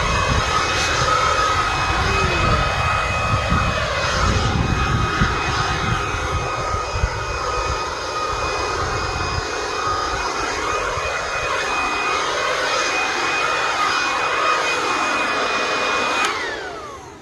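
Battery-powered handheld leaf blower running steadily with a high whine, with a gusty low rumble during the first half. Near the end it is switched off and the whine falls away as the fan spins down.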